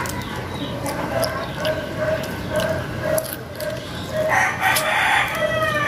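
A rooster crows about four seconds in: a harsh rasp that turns into a drawn-out, slightly falling tail. Soft clicking mouth sounds of eating run beneath.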